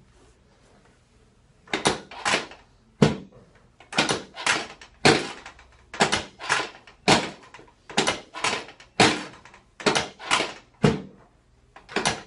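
A steady series of sharp knocks starting about a second and a half in, coming in pairs and singles at roughly two a second, from the chiropractic treatment on the table.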